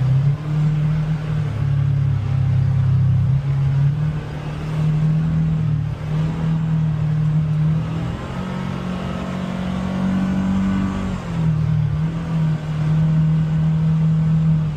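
Polaris Xpedition UTV engine running under load on an off-road trail, its note changing with the throttle. Past the middle it steps up to a higher pitch for about three seconds, then drops back.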